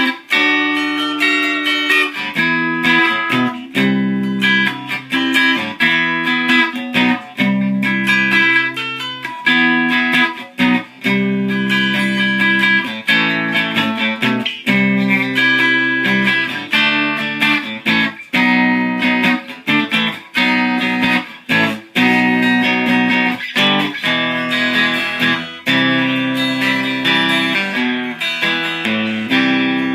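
Six-string cigar box guitar, built in an Aroma de Cuba cigar box, being played: a continuous run of picked notes and strummed chords.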